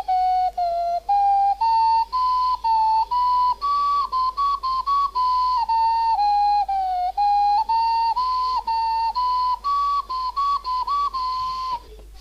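A simple tune played one note at a time on a flute-like instrument, in short steady notes that step up and down, stopping shortly before the end.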